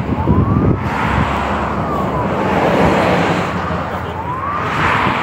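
Vehicle siren wailing in slow sweeps: the pitch rises over about a second and falls away, then rises again near the end, over steady road noise.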